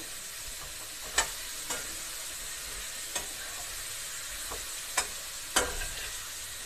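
Potatoes and cauliflower sizzling in a steel kadai over a gas flame, with a spatula knocking and scraping against the pan about six times as the vegetables are stirred.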